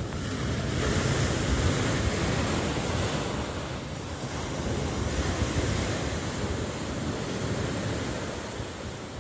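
Ocean surf: waves breaking and washing ashore in a steady rush that swells about a second in and again around five seconds, then eases.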